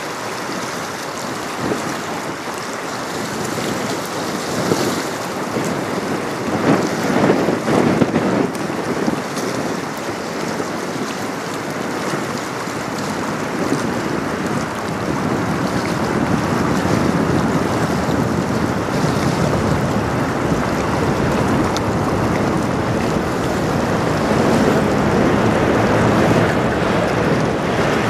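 Wind buffeting the microphone over choppy river water lapping. A low rumble grows louder through the second half.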